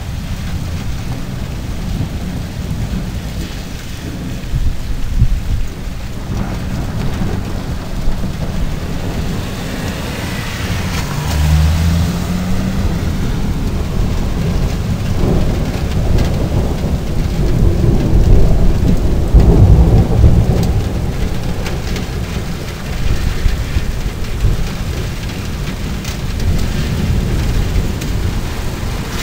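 Heavy rain falling steadily on a street, with low thunder rumbling on and off through it, loudest around twenty seconds in.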